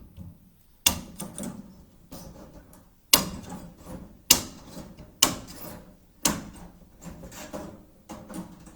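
Hand snips cutting through wire cage mesh: a series of sharp snaps, about five loud ones a second or so apart, with smaller clicks between.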